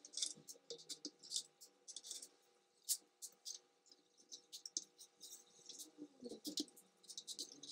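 Quick, irregular clicks and taps of laptop plastic and small screws as a Dell Inspiron N5040 is taken apart, played back sped up.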